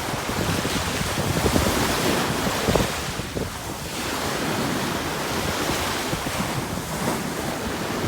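Sea waves washing in, a steady surf hiss that swells and eases every few seconds, with wind buffeting the microphone.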